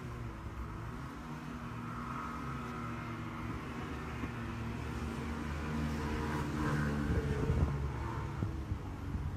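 Steady engine and road noise heard inside a moving car, a low hum that swells a little about seven seconds in.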